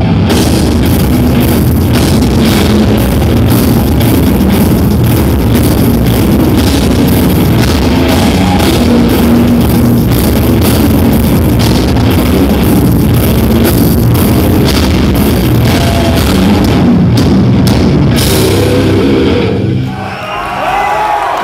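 Death metal band playing live at full volume: heavily distorted guitars and bass over fast drums. The song ends about twenty seconds in, and the crowd cheers and whistles.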